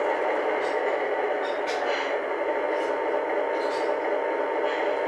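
Lionel O-gauge Alco S4 diesel switcher model locomotive running along the track: a steady mechanical running noise with faint clicks about once a second.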